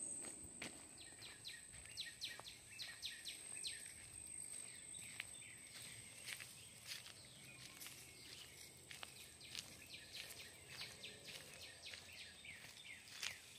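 Faint woodland ambience: many short, high bird chirps scattered throughout, over a steady high-pitched insect trill.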